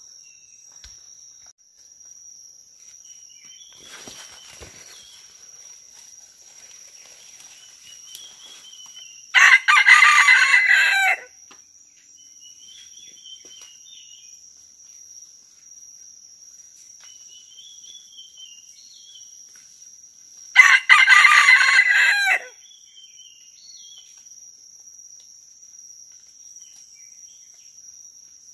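Red junglefowl rooster crowing twice, about eleven seconds apart, each crow lasting about two seconds. A steady high-pitched insect drone and faint scattered bird chirps run underneath.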